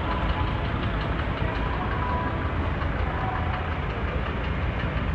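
Street traffic: the engines of vans and trucks idling and running in slow traffic, a steady low rumble.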